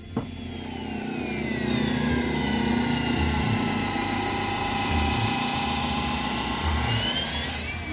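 A small engine running, its pitch sliding down over the first couple of seconds, holding steady, then rising near the end.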